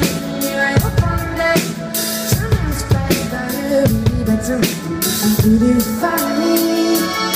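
Live pop band music: a drum kit with regular bass drum and snare hits under sustained piano or keyboard chords, and a woman's voice singing.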